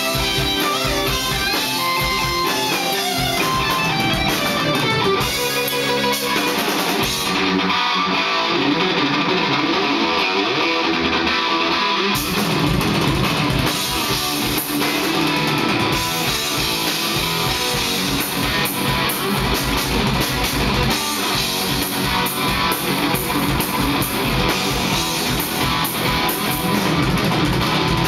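Live instrumental rock: an electric guitar plays lead over bass and drums. About a third of the way in, the drums and low end drop away for a few seconds, leaving the guitar largely on its own, and then the full band comes back in.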